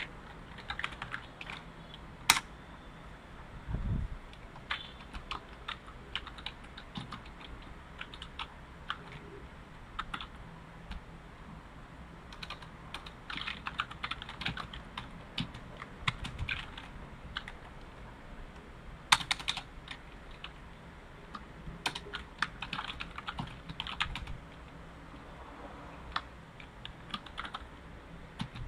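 Typing on a computer keyboard: bursts of quick keystrokes with pauses between them, and a few sharper, louder single clicks. Two dull low thumps, about four seconds in and again past the middle.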